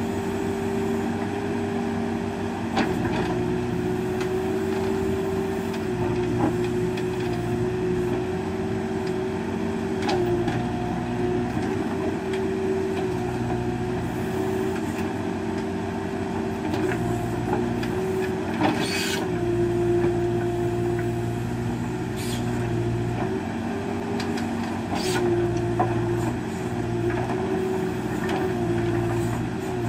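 Case backhoe loader's diesel engine running steadily as it digs with the rear bucket, its note dipping and shifting now and then as the hydraulics take load. A few sharp knocks of the bucket and rocks are heard, the loudest about two-thirds of the way through.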